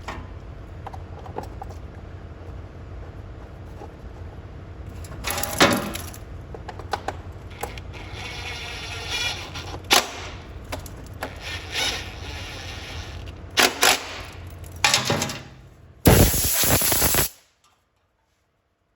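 Tools knocking and clicking on a walk-behind mower as its belt cover is refitted, over a steady shop hum. Near the end a loud hissing burst lasts about a second, then the sound cuts off abruptly.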